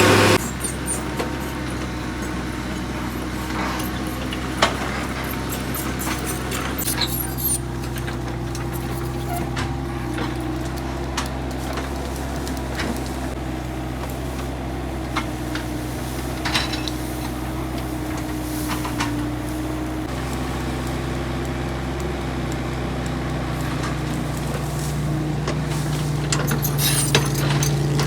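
Diesel engine of an excavator running steadily, with scattered clinks and knocks of metal. The engine's pitch rises slightly about two thirds of the way in.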